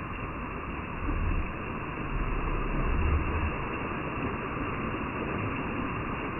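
Steady rush of a small waterfall spattering down a rock face into a pool, with two brief low rumbles on the microphone about one and three seconds in.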